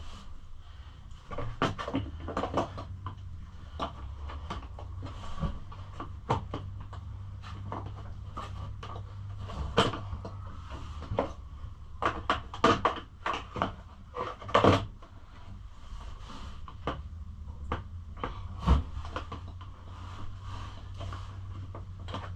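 Plastic body panels being handled and fitted onto a pit bike: irregular light knocks, taps and clicks of hard plastic against the frame, coming in clusters with the loudest knocks about ten, thirteen and fifteen seconds in.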